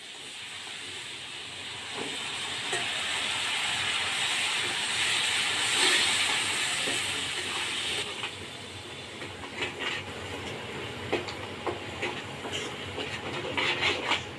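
Wet onion, ginger-garlic and spice paste sizzling in hot oil in a pan, the hiss swelling over the first few seconds and dying down after about eight. After that, a steel spoon scrapes and clinks against the pan as the masala is stirred.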